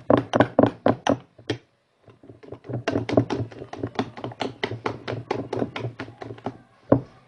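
Rapid, even tapping and knocking, about six strikes a second, from a utensil stirring slime and striking the sides of its mixing bowl. It stops for about half a second around two seconds in, then resumes, with one heavier knock near the end.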